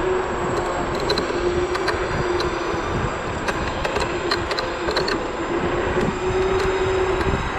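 Zero 10x electric scooter riding: steady wind and road rush with a motor whine that wavers slightly in pitch, and scattered clicks and rattles.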